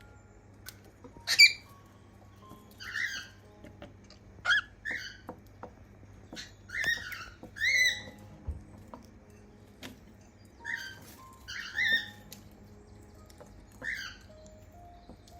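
Cockatiels chirping: about ten short, high calls at irregular intervals, the loudest about a second and a half in.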